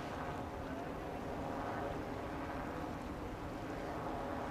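Steady hum of a passing motorboat's engine over wind and water noise, with faint voices in the background.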